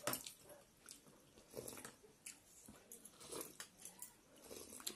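Quiet eating sounds: chewing and slurping of noodle soup, with scattered light clicks of forks and spoons against the bowls.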